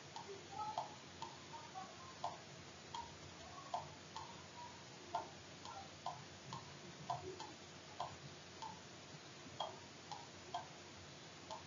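Faint, uneven clicking, about one or two clicks a second: a computer mouse being clicked as underlines are drawn on screen.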